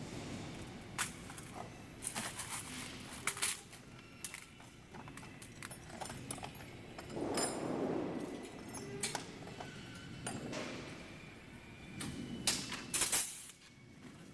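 Thin stainless-steel vanes and rings of a turbine roof ventilator clinking and rattling as they are handled and fitted together, with scattered sharp metallic clicks and a rustling scrape about seven seconds in.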